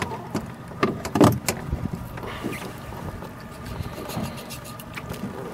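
A few sharp knocks and clicks of handling on a small fishing boat at sea, the loudest a little over a second in, over a steady wash of wind and water.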